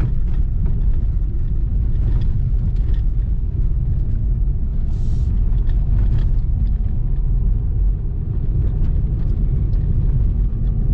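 A Lada Vesta driving over a washboard dirt road, heard from inside the cabin. A steady low rumble of tyres and suspension carries a few light knocks and rattles; with the new struts the cabin rattles only slightly.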